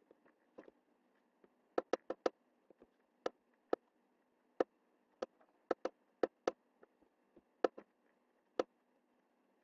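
Computer mouse button clicking: about fifteen sharp, irregular clicks, some in quick runs of two or three, as lines are drawn and tools picked in MS Paint, over a faint steady hum.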